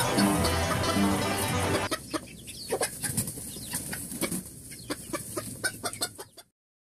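Banjo band music stops abruptly about two seconds in, followed by chickens clucking in short, irregular calls that cut off shortly before the end.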